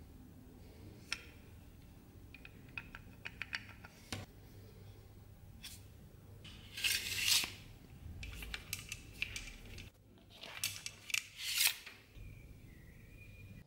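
Small metal clicks and scrapes from the rusty metal parts of an old dagger and its scabbard being handled on a workbench: a quick run of light ticks about three seconds in, then louder scraping rattles in the second half.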